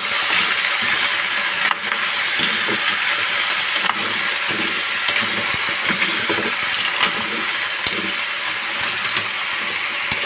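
Green mussels stirred in an aluminium wok with a metal ladle: shells clattering and clicking against each other and the pan over a steady hiss of steam.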